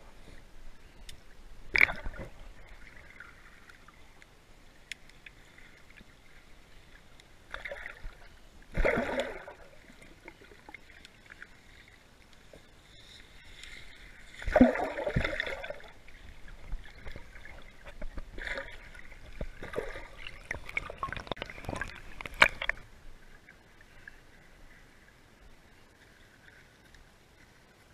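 Muffled splashing, gurgling water and knocks as heard by a camera held underwater while swimming, coming in irregular loud bursts about two, nine and fifteen seconds in and again around twenty seconds, with quieter underwater stretches between.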